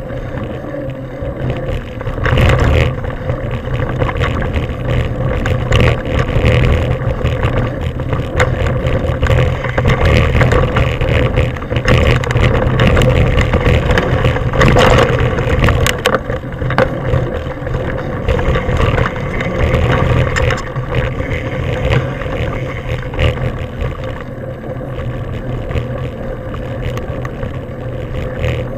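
Wind buffeting the microphone of a camera riding on a mountain bike, over the rumble of tyres on a dirt trail, with frequent knocks and rattles as the bike goes over bumps. It eases off near the end, on a smoother gravel track.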